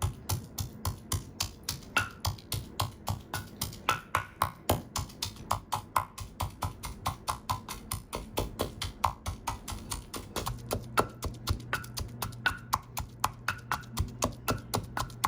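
Pestle pounding fresh garlic and ginger in a mortar, crushing them to a paste: quick, steady strikes, about four or five a second.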